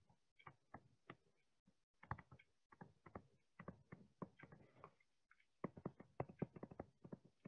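Near silence broken by faint, quick, irregular ticks and taps of a stylus writing on a tablet.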